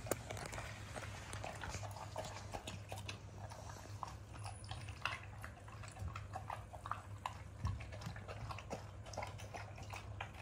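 Bernese Mountain Dog eating dry kibble from a stainless steel bowl: irregular crunching and chewing, with sharp clicks of kibble and teeth against the metal bowl, several a second.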